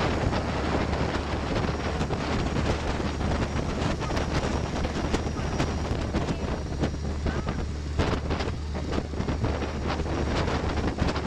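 Boat engine running steadily under way, a constant low hum beneath heavy wind buffeting the microphone and the rush of water, with frequent small knocks and thumps.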